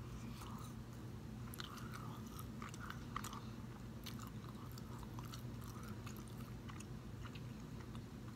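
Close-up biting and chewing of a piece of burnt raisin toast: soft irregular crunches and wet mouth clicks over a low steady hum.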